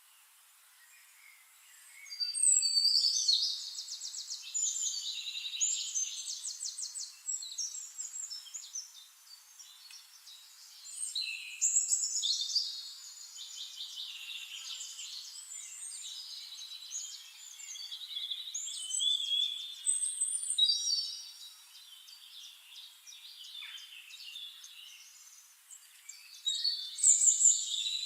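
Songbirds singing: bursts of high, rapid trills and chirps with short pauses between phrases. The first phrase comes about two seconds in, and another loud phrase comes near the end.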